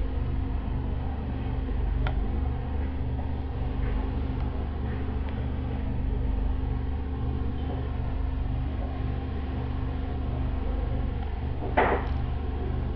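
Steady low mechanical hum, with a few faint clicks and one sharper knock near the end as marinated pork chunks are handled on a metal skewer.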